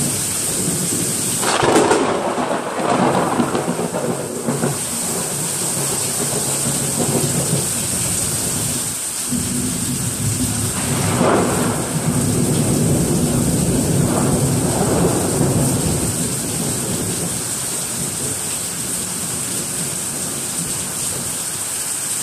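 Heavy rain pouring with a steady hiss, and two claps of thunder. The first cracks about a second and a half in and rumbles for a few seconds. The second breaks about ten seconds in and rolls on for several seconds before fading back into the rain.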